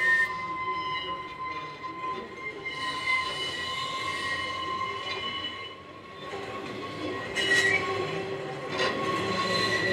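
Manx Electric Railway open tramcar and trailer running slowly round a curve, the wheels squealing on the rails in a steady high tone, with two sharp clacks from the wheels near the end.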